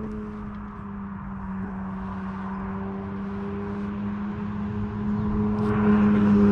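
An engine hums steadily as it passes, its pitch drifting slowly lower and getting louder near the end.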